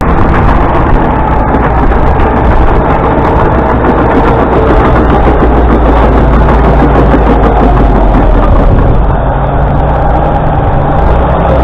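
A heavy engine running loud and steady, with a strong low rumble.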